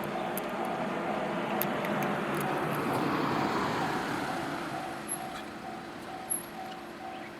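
Railway level-crossing warning bell ringing steadily, about two and a half strikes a second, over the noise of a passing vehicle that swells to its loudest about halfway through and then fades.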